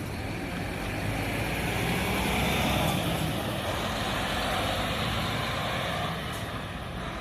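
Coach bus driving past, its engine and tyres getting louder to a peak about three seconds in, then dropping away after about six seconds.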